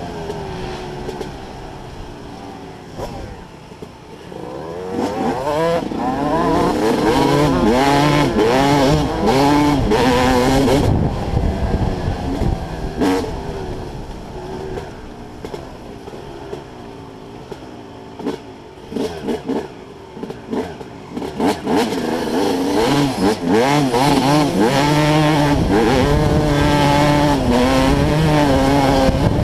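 Dirt bike engine heard from the rider's own helmet, revving up and down again and again as the throttle is opened and closed. It is quieter in the first few seconds and through the middle, and loudest from about five to eleven seconds in and over the last several seconds.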